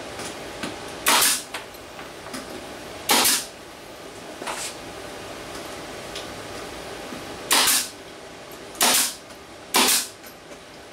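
Pneumatic nail gun firing into the wooden box frame: five sharp shots, each with a short puff of air, at uneven gaps, plus a weaker one about four seconds in.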